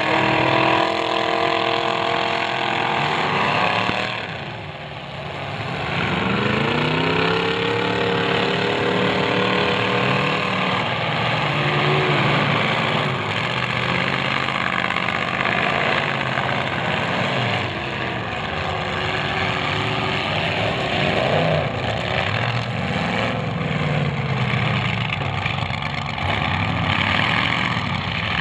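Demolition derby cars' engines revving hard and easing off, rising and falling in pitch, with the revving dropping away briefly about five seconds in; a few short knocks are heard later on.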